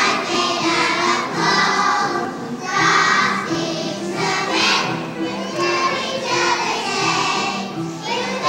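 A children's choir singing together.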